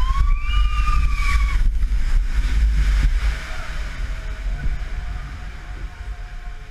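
Water-ride boat moving through a dark-ride scene: a low rumble with water sloshing. Near the start a pitched tone rises and is held for about a second and a half. A faint steady tone comes in about halfway.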